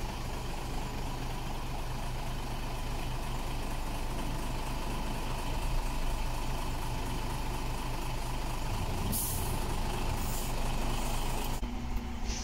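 Isuzu Giga dump truck's diesel engine idling steadily. Two short hisses of air from the air brake system come near the end.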